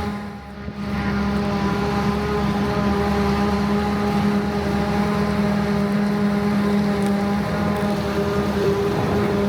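Claas Jaguar 970 forage harvester running steadily under load while chopping rye: a constant heavy diesel and machine drone with a steady hum. There is a short drop in level just after the start.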